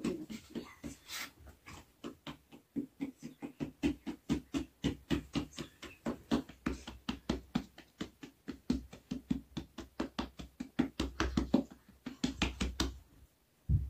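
Bread dough being kneaded by hand in a large metal basin: a steady rhythm of soft pushes and slaps, about four a second, that stops about a second before the end.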